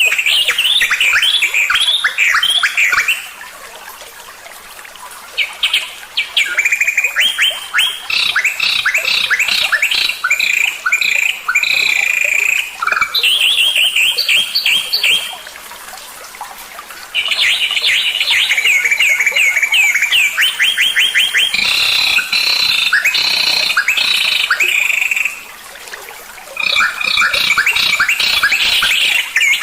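Songbird song: loud phrases of fast, repeated chirping and trilling notes, each phrase lasting several seconds, with short pauses about 3, 15 and 25 seconds in.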